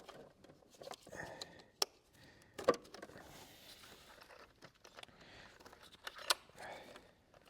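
Scattered clicks and knocks of hand work in a car's engine bay, plastic harness connectors and clips being unclipped and handled, with sharp clicks about two, three and six seconds in, the one near three seconds the loudest.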